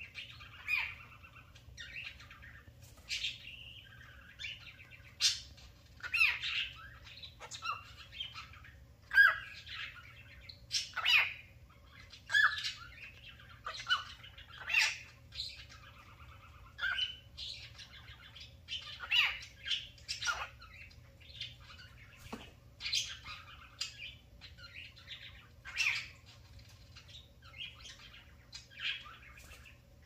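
Cockatiel chirping and squawking in short, irregular calls, one or two a second, mixed with mimicked speech that sounds like "come here!" and "let's go!".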